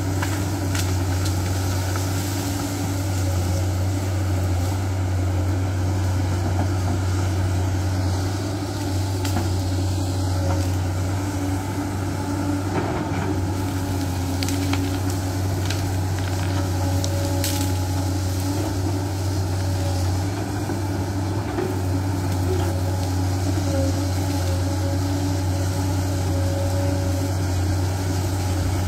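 Hydraulic crawler excavator's diesel engine running steadily under load while it clears brush, with a low, even drone and a few short cracks.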